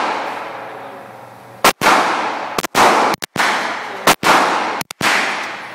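A 9mm Beretta Cx4 Storm carbine firing about five shots at irregular intervals of roughly a second, starting a couple of seconds in. Each shot is sharp and followed by a long echoing decay.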